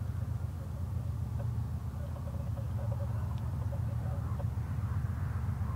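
Low, steady rumble of distant GE ES44DC diesel locomotives working a freight train.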